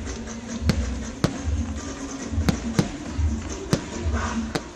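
Fireworks going off: a run of sharp bangs and cracks at irregular spacing over a low, pulsing rumble.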